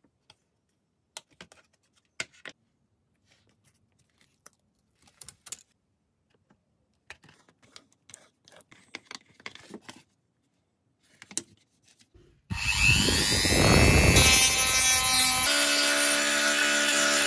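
Scattered light clicks and rustles of a black plastic panel and aluminium tape being handled. About twelve seconds in, a handheld rotary tool starts up loudly with a high whine, its pink grinding stone running against the plastic; its pitch shifts twice.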